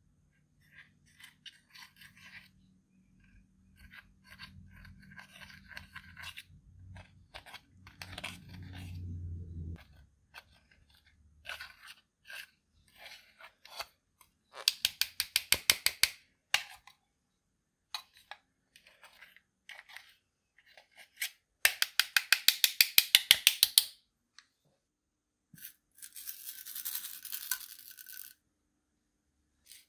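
A pointed metal tool scraping and crumbling pressed eyeshadow powder in its plastic palette, with soft crunches and scratches. Twice, about halfway and again some seconds later, comes a run of rapid sharp taps, several a second for one to two seconds, which are the loudest sounds.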